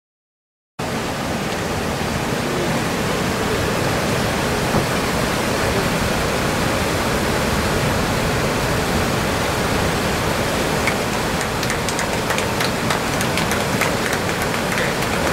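Steady rushing of river water, cutting in suddenly about a second in, with a run of small clicks and splashes in the last few seconds as the cormorants work the water.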